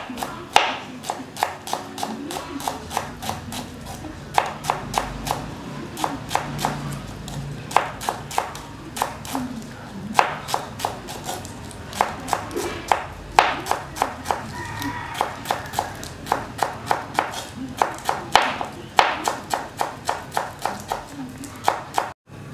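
Kitchen knife chopping leafy greens finely on a plastic cutting board: quick runs of sharp taps, several a second, with short pauses between runs. The chopping cuts off abruptly near the end.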